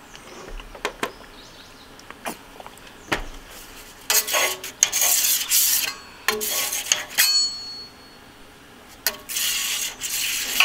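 Metal spatula scraping across the steel top of a heating propane flat-top griddle, spreading oil in three bouts of scraping strokes, with a few clinks of the blade on the steel before them.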